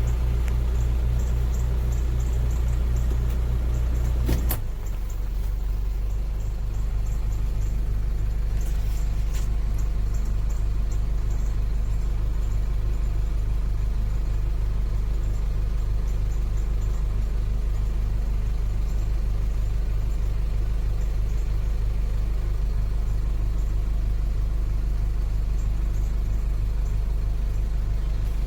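2006 Chevrolet Trailblazer engine idling with a steady low hum. About four seconds in there is a sharp click, after which the hum settles slightly lower.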